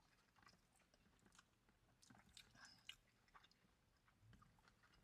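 Faint chewing and small mouth clicks of someone eating a hamburger, irregular and a little louder about halfway through.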